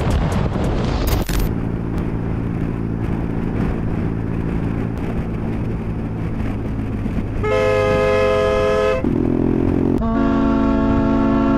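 Vehicle engine and road noise, then a vehicle horn sounding in long blasts. The first lasts about a second and a half, past the middle. The second, lower-pitched, is held for the last two to three seconds.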